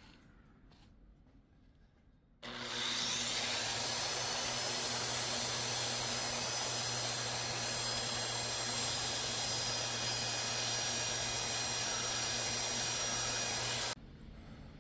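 A handheld electric belt sander starts about two and a half seconds in, its motor whine rising as it spins up. It runs steadily while grinding a wooden knife handle down to the tang, then cuts off abruptly near the end.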